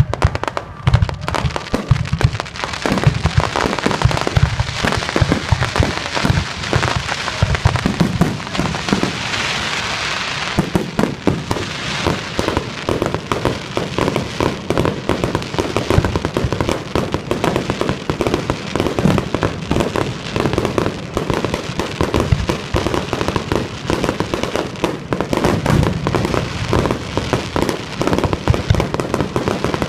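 Fireworks finale barrage: aerial shells bursting in rapid, overlapping succession, a dense, continuous run of booms, with a burst of crackling about a third of the way in.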